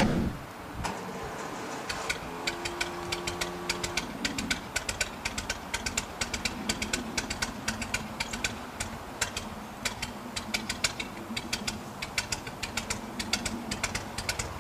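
Ferguson TE20 tractor engine idling, with a fast, even ticking knock.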